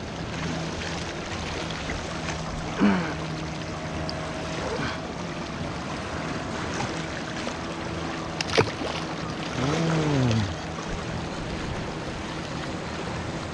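Sea waves washing against a rocky shore, with a faint steady hum underneath. A short sound dropping in pitch comes about three seconds in, a sharp knock at about eight and a half seconds, and a longer sound dropping in pitch near ten seconds.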